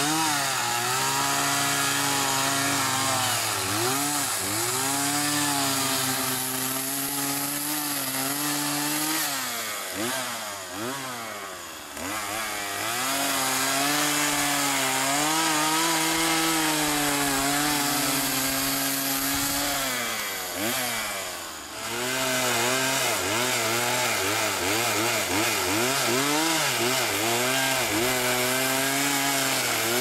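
Chainsaw cutting into a log, running at high speed and easing off three times, then revving back up into the cut.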